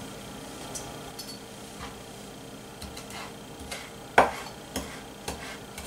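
A few scattered light clicks and knocks of a kitchen knife and utensils against a cutting board, the loudest a little past four seconds in.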